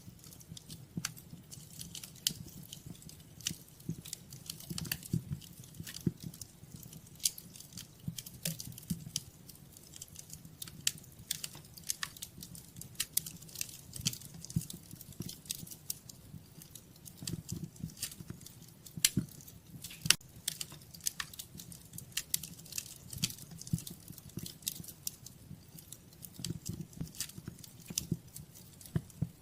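Wood fire crackling in a fireplace: irregular sharp pops and snaps over a low, steady rumble of the flames, with a few louder snaps here and there.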